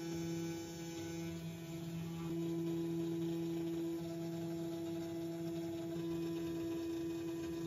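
Makera Carvera Air desktop CNC milling 3 mm mild steel with a 1/8-inch carbide flat end mill at a very shallow 0.05 mm step down: a steady hum with two low notes. It grows slightly louder about two seconds in.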